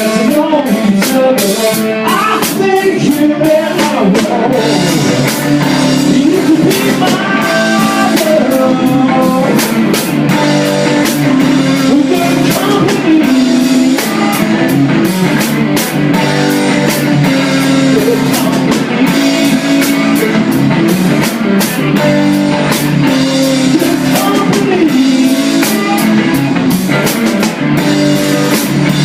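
Rock band playing a song: electric guitar and drum kit keeping a steady beat, with singing.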